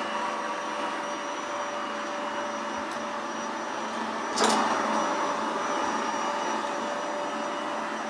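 Taurus Hexa Stryker robot vacuum cleaner running steadily as it sweeps up dry grass and dirt: a motor hum with a thin steady whine. A single knock comes about four and a half seconds in.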